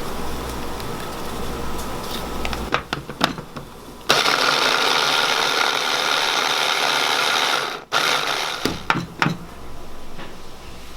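A small electric kitchen appliance's motor, most likely processing the mint and garlic sauce. A few clicks come about three seconds in; about a second later it runs loud and steady for nearly four seconds, then cuts off sharply, and a few knocks follow.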